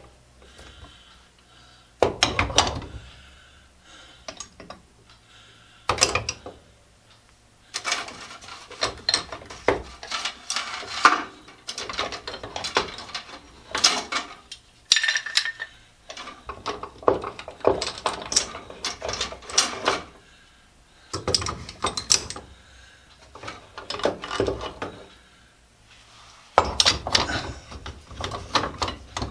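Steel C-clamps clanking against each other and against the rack's pegs as they are taken down and hung up, in bursts of clatter every few seconds.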